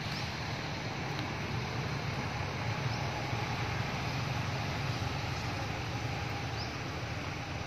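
Steady low outdoor rumble and hiss, with a few faint short high chirps scattered through it.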